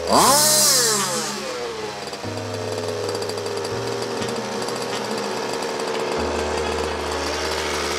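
Small two-stroke petrol engine of a 1/5-scale RC car running on a test stand. It is blipped to higher revs right at the start and falls back, then runs steadily at a fast idle, warmed in throttle pulses to heat-soak the piston and cylinder before hard running. Background music with a steady bass line plays under it.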